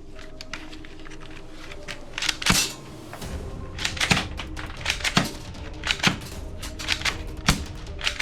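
Sharp plastic clicks and snaps from toy guns being worked or fired: one loud snap about two and a half seconds in, then clicks roughly once a second with lighter clicks between, over faint background music.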